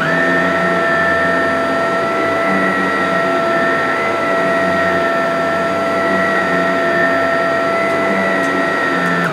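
Shark NV680 Powered Lift-Away upright vacuum cleaner running in lift-away mode, with the powered brush-roll head pushed over carpet. Its motor gives a loud, steady, high whine.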